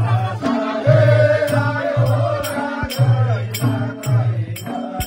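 Nepali folk music for a Maruni dance: a pitched drum beat about twice a second with sharp high strikes on the beat, and a voice chanting or singing over it.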